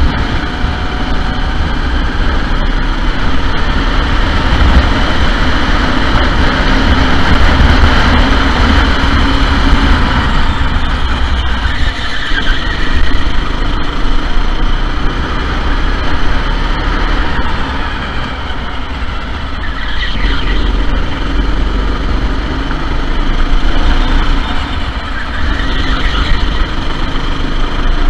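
Sodi SR4 go-kart engines running on track, a loud continuous drone heavy in the low end that eases slightly a couple of times.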